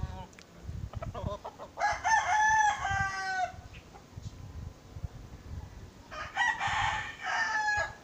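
Rooster crowing twice, a long drawn-out cock-a-doodle-doo about two seconds in and another near the end.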